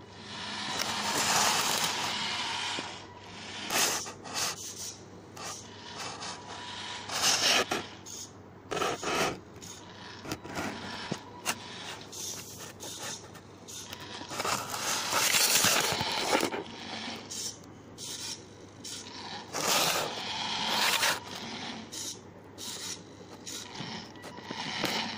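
A small hobby robot's geared DC motors drive it in stop-start bursts across a tiled floor, with scraping and rubbing from the chassis and wheels.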